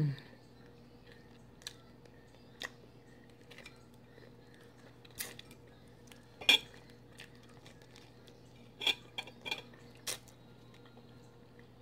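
Cooked Dungeness crab shell cracking and snapping as it is broken and picked apart by hand over a plate: scattered sharp clicks, the loudest about six and a half seconds in, then a quick cluster of three or four near the end.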